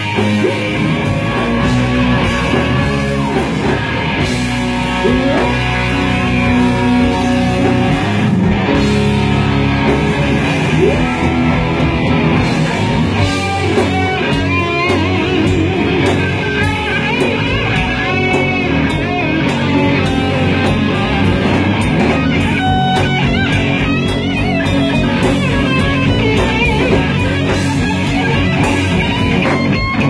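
Live hard rock band playing loud: electric guitars, bass guitar and drum kit.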